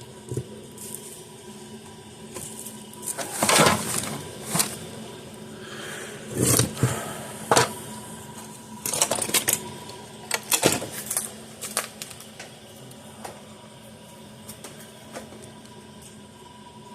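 Hand tools being picked up, shuffled and set down on a workbench while someone rummages for a screwdriver: irregular clicks and knocks, with louder clattering about 3.5, 6.5 and 10.7 seconds in.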